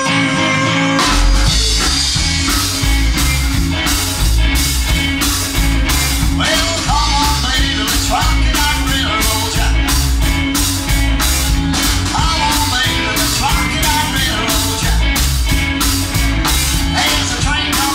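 Rock and roll music: a full band with a steady drum-kit beat that comes in about a second in, with a singer's voice over it.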